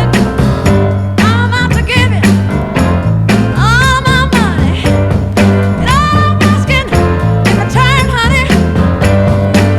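Rhythm and blues record playing from vinyl: a steady beat and bass line under a wavering, vibrato lead melody, most likely a singer.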